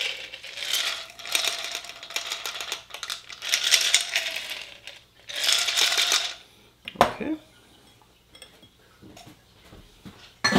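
Ice cubes rattling inside a glass mason jar being shaken over a fine-mesh strainer to drain the last of a stirred cocktail, in two spells of several seconds; a sharp knock follows, then a few faint clinks.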